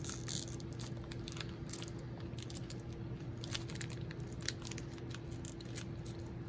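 Trading cards and their cellophane pack wrappers being handled: scattered soft clicks, flicks and crinkles, over a steady low hum.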